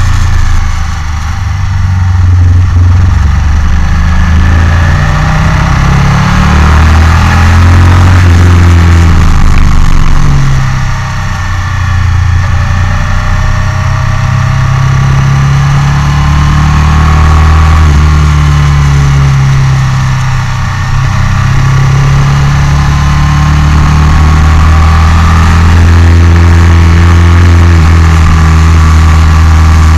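Onboard sound of a motorcycle engine at track speed, running hard and pulling through the gears. Its pitch climbs and steps at each gear change, and the throttle shuts briefly three times, about one, eleven and twenty-one seconds in.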